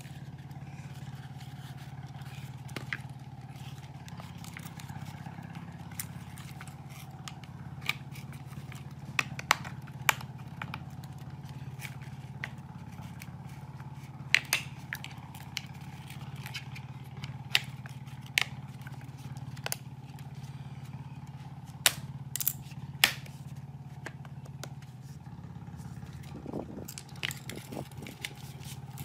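Scattered sharp clicks and knocks of a small plastic bicycle wheel and its rubber tyre being handled and pried off the rim, over a steady low hum.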